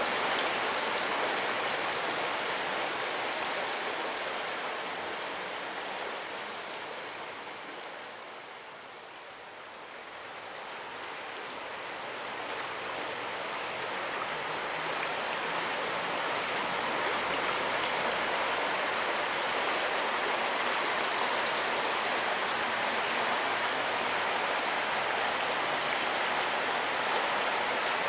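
Shallow rocky stream rushing and splashing over stones in a steady wash of water noise. The sound fades down about a third of the way in and swells back up.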